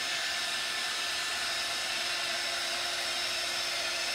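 Handheld craft heat gun blowing steadily: a constant hiss of air with a faint steady hum, drying chalk paint on a wooden tray.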